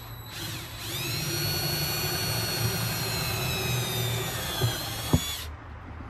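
Cordless drill spinning up and boring a pilot hole through a plastic plant saucer, its whine sinking slowly in pitch as the bit works. Two short knocks come near the end, and then the drill stops.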